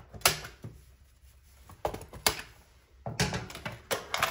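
Cardboard honor boxes handled by hand: a string of knocks, taps and rustles, with a loud knock just after the start and busier clusters about two seconds in and from about three seconds in.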